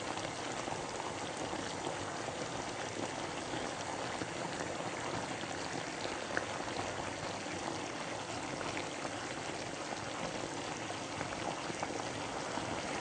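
Lala clams in sambal sauce cooking in a wok: a steady bubbling sizzle with small crackles throughout.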